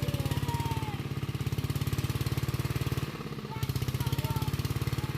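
A small engine running steadily with a fast, even pulse, briefly dropping quieter a little past halfway.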